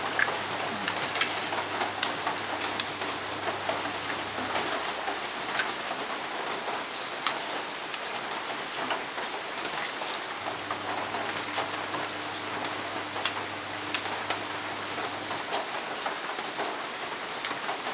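Heavy rain falling: a steady hiss with scattered sharp drip ticks.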